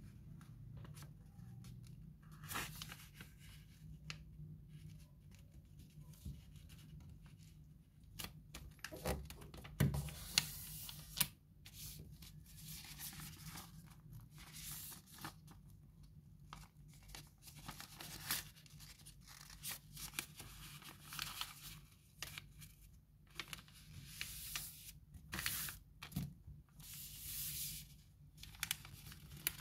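A sheet of paper being folded by hand into a paper airplane: crisp rustles and crinkles as it is handled, with creases pressed and run flat with the fingers, coming in irregular short spurts. A faint steady low hum lies underneath.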